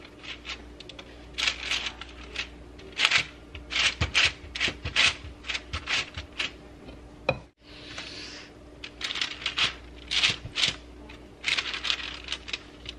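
Parchment paper crinkling and crackling under hands smoothing it flat on a baking sheet, in irregular clusters of crisp crackles, with a brief break about halfway through and a faint steady hum underneath.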